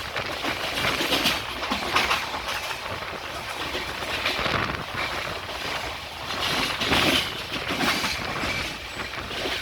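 Poorva Express train running on the track at speed: a steady rush of wheels on rail, with a clatter about every second as the wheels pass over rail joints.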